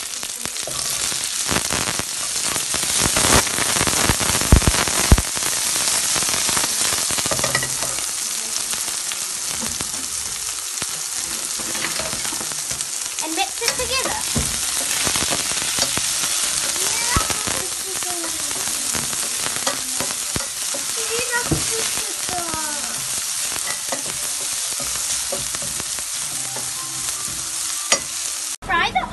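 Chopped onion frying in hot oil with a tempering of dals, curry leaves and chilies in a stainless steel pan, sizzling steadily while a wooden spatula stirs it. It crackles and pops loudest in the first few seconds after the onion goes in. The onion is being fried until light golden brown.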